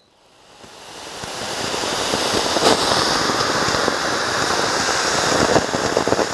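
Eagle-shaped multi-jet ground fountain firework spraying sparks from several nozzles: a rushing hiss that builds over the first two seconds, then holds steady, with crackling throughout.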